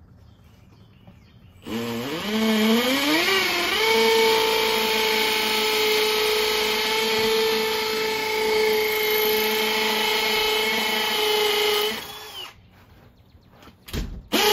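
Cordless drill motor spinning up, its whine rising in pitch over about two seconds, then running at a steady speed for about eight seconds before stopping; a short thump follows and the drill starts again right at the end.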